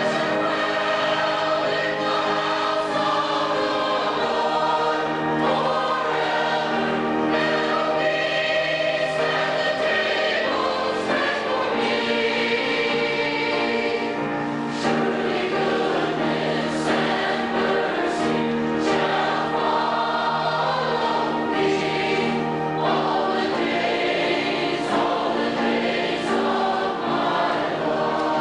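Mixed choir of men and women singing a hymn in parts, with an organ accompanying on long held notes.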